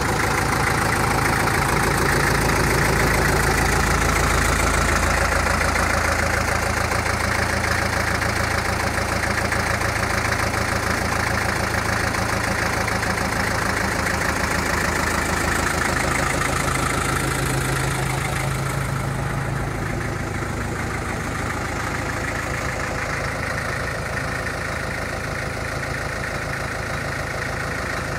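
Porsche-Diesel Master 418's air-cooled four-cylinder diesel engine idling steadily with an even knocking beat. It drops a little in level about two-thirds of the way through.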